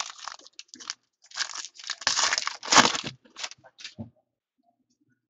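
Foil wrapper of a football trading card pack being torn open and crinkled, in a run of short rustling bursts that is loudest two to three seconds in and stops about four seconds in.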